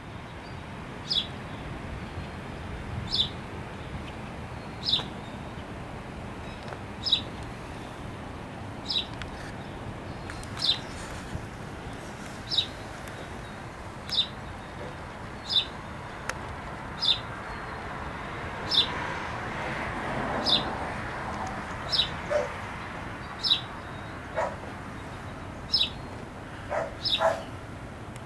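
A bird gives a short, high chirp over and over, about every two seconds. From about two-thirds of the way in, dogs start barking, more often near the end.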